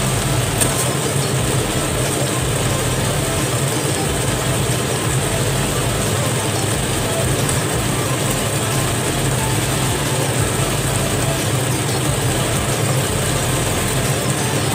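Chicken and onions cooking in a frying pan, a steady hiss with a constant low hum under it.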